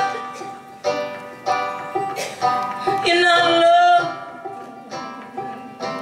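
Live folk band: a woman sings over banjo, guitars and drums, with a sung line about halfway through and plucked banjo notes between phrases.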